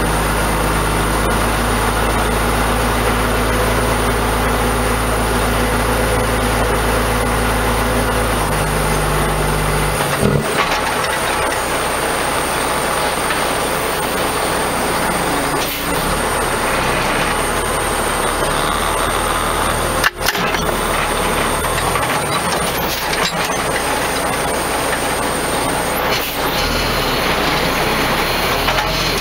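Heavy diesel engine of an oilfield bed truck running steadily. Its deep low drone drops away about ten seconds in, and the engine runs on lighter after that. There is a single sharp click about twenty seconds in.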